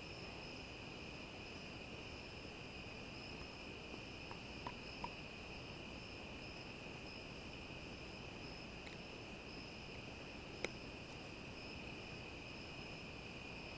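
Steady, high-pitched chorus of crickets trilling, with a few faint clicks in the middle.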